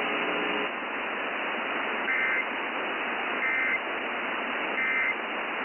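Three short bursts of Emergency Alert System end-of-message data tones, a two-tone warbling screech each about a third of a second long and about 1.4 s apart, marking the end of the broadcast warning. Under them runs steady radio static hiss.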